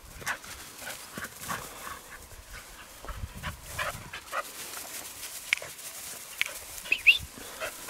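Dogs playing and scuffling on grass, with short scattered noises of movement. About seven seconds in, one dog gives a short high whine, the loudest sound.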